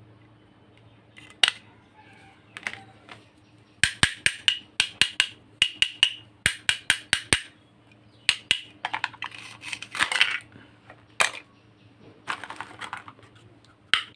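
Small plastic toy pieces being handled, clicking and knocking: a run of sharp taps at about three a second, then a few short scraping, rustling bursts.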